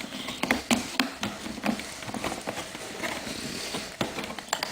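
Leather straps and buckles of a tool kit case being undone: a run of irregular small clicks, taps and rustles as the buckles and leather are handled.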